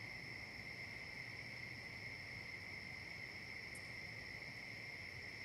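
Crickets trilling in a steady night chorus, a constant high-pitched drone.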